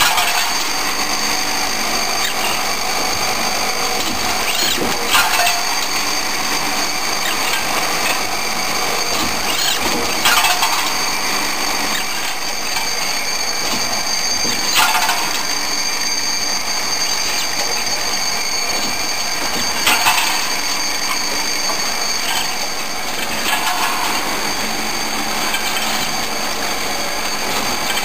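CNC transfer machine running through its machining cycle: a steady mechanical din with a high-pitched whine, broken by a short burst of cutting or clattering about every five seconds.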